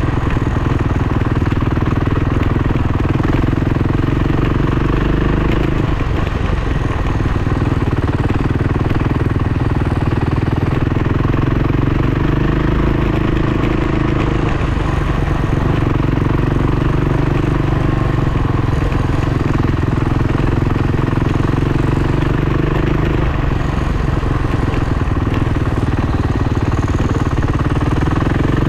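Off-road motorcycle engine running steadily while being ridden. Its pitch shifts a little with the throttle every several seconds.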